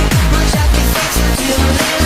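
Loud electronic dance music with a fast, steady kick-drum beat under bass and synth tones; the low end drops out briefly near the end.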